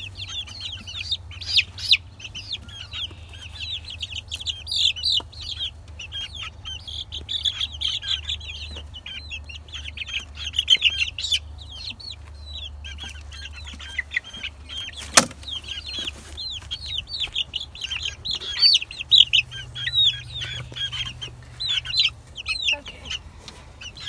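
Young chicks peeping continuously, many short high chirps overlapping, on their first time in an outdoor coop. A single sharp knock about fifteen seconds in.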